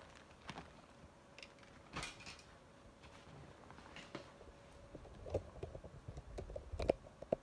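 Scattered light clicks, taps and knocks of things being handled, coming thicker and sharper in the last couple of seconds.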